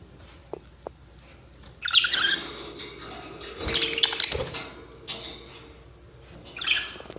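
Parrots chirping in short bursts, about two seconds in, again around four seconds, and once more near the end. A couple of faint clicks come in the first second.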